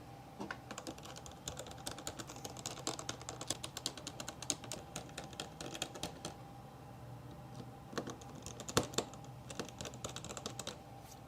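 Rapid light clicks and taps of laptop parts being handled as the battery is fitted back into the opened laptop, a dense run of clicks, a short lull, then more clicks near the end.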